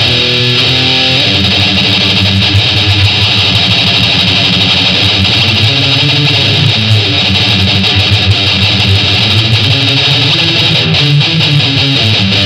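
Electric guitar riffs played through a small Marshall combo amp and recorded by a condenser microphone set in front of the amp's speaker. The playing is continuous and loud, with a bright, hissy upper edge.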